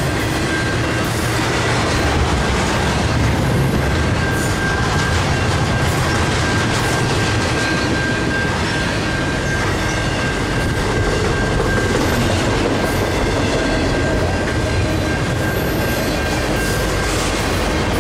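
Intermodal freight train of semi-trailers on flatcars rolling past: a steady, loud rumble of wheels on rail with clicking over the rail joints and a thin, steady high-pitched squeal over it.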